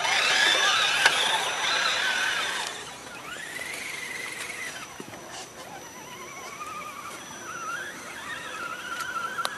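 Electric motor whine from RC scale crawler trucks, its pitch sliding up and down with the throttle. It is loudest in the first three seconds, then goes on quieter with slow wavering rises and falls.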